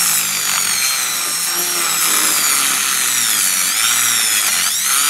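Dremel rotary tool with a cut-off disc cutting into the plastic housing of a windscreen washer pump motor: a steady high whine whose pitch sags and recovers as the disc bites, dipping most sharply near the end.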